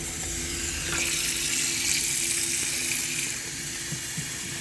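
Water running steadily from a tap into a laundry sink, filling it, with a faint steady hum underneath.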